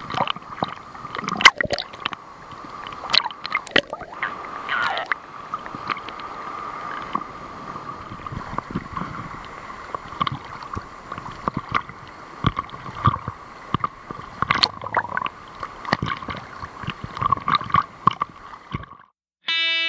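Sea water splashing and sloshing against an action camera held at the surface, with irregular sharp splashes as small waves hit it and a steady hum running underneath.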